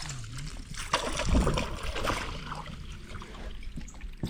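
Water splashing and trickling beside a kayak as a hooked fish is drawn into a landing net, with small knocks of the net and gear.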